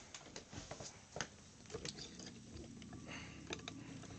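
Faint scattered clicks and taps of a plastic Transformers Megatron action figure being handled.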